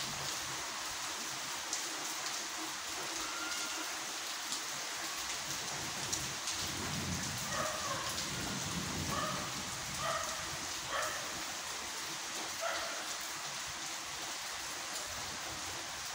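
Steady rain falling on a street and pavement, an even hiss throughout. A low rumble runs for a few seconds near the middle, and a few short faint calls come through the rain.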